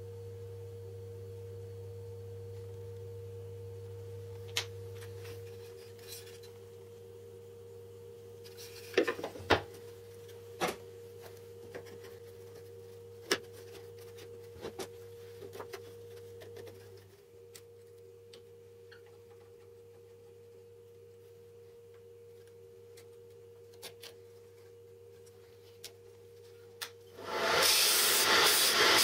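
Light clicks and knocks of a wooden drill-bit sharpening jig being handled on a workbench, over a steady low hum. Near the end an electric bench disc sander starts abruptly with a loud rushing whir.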